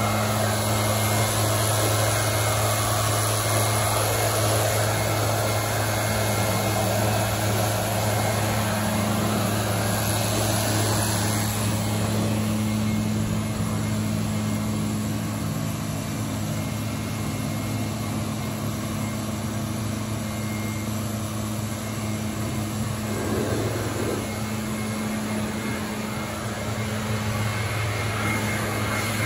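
Pressure washer at work: a steady engine hum under the hiss of water spray, with the spray louder for the first dozen seconds or so.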